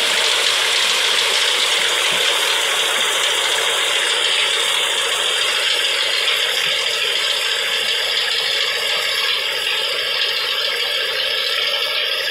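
Tractor-front reaper binder running as it cuts standing wheat: a steady mechanical rattle from the cutter and drive.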